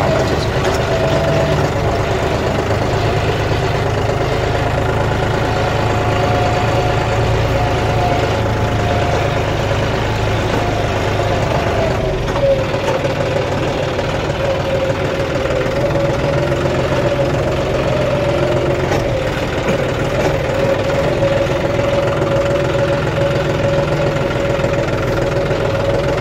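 A John Deere tractor's diesel engine running under way, heard from the driver's seat. It holds a steady note that drops a little in pitch about halfway through, as the engine eases off.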